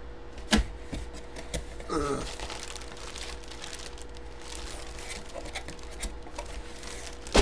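Clear plastic bag crinkling and rustling as a bagged jersey is handled and lifted out of a cardboard box, with scattered crackles and a sharp click about half a second in.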